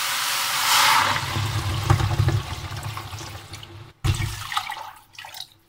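Water poured from a jug into a hot stainless steel pot of browned meat and chickpeas. It starts with a short hiss as the water hits the hot pot, then a heavy gushing pour that fades off over the next couple of seconds.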